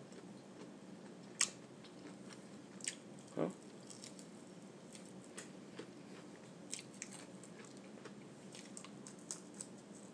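A person chewing food close to the microphone, with soft crunches and small mouth clicks. A few louder clicks come in the first four seconds.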